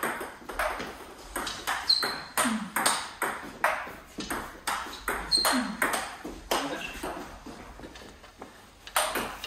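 Table tennis rally: the celluloid-type plastic ball clicking off rubber rackets and the table top in quick alternation, a sharp tick every few tenths of a second. Two brief high squeaks come in mid-rally, and the clicking thins out about three-quarters of the way in as the rally ends, with a last click or two near the end.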